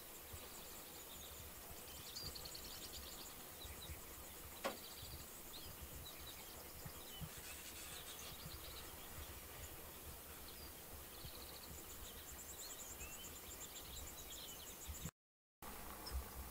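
Quiet open-air ambience: faint bird chirps and high trills over a low, gusty wind rumble on the microphone. A single sharp tick comes about four and a half seconds in.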